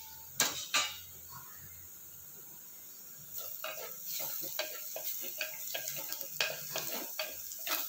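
Chopped onions sizzling softly in oil in a clay pot, with two sharp clinks near the start. From about three seconds in, a wooden spatula stirs them, scraping against the pot in quick irregular strokes over the sizzle.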